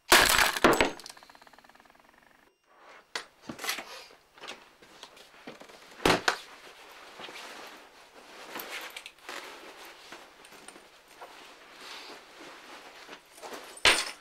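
A sudden loud crash that fades away over about two seconds, then soft rustling of clothes being handled, with a sharp knock about six seconds in and another just before the end.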